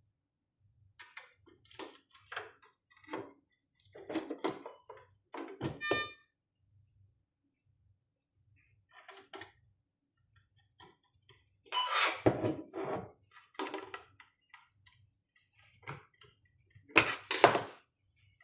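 Irregular clicks and clatter of hands handling a Mindray T5 patient monitor's circuit boards, plastic casing and small metal parts during a mainboard swap, with louder bursts of clatter near the middle and near the end. A brief ringing tone sounds about six seconds in.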